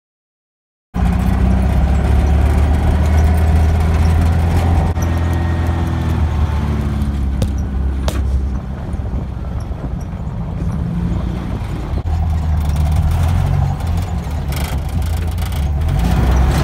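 1965 Volkswagen Beetle's air-cooled flat-four engine running under load on a dirt trail. It cuts in abruptly about a second in, eases off about halfway through and picks up again near the end.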